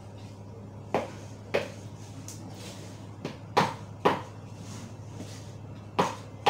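Wooden spoon stirring cake batter in a mixing bowl, knocking sharply against the bowl's side about six times, mostly in pairs, with quieter scraping in between.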